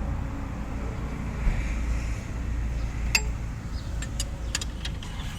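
Spanner clinking against the scooter's oil drain bolt as it is tightened: one sharp metal click about three seconds in, then a quick run of four or five clicks near the end, over a steady low rumble.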